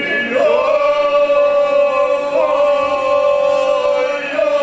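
Unaccompanied Serbian traditional folk singing by a small group of voices. The voices slide up into one long held note about half a second in and sustain it, with small lifts about halfway and near the end.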